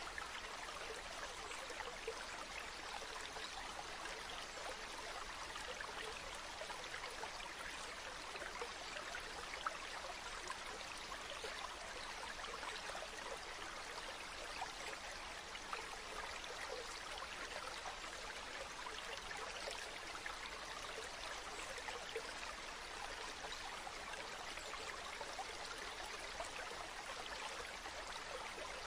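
Steady hiss with faint crackling, like a running stream, unchanging throughout.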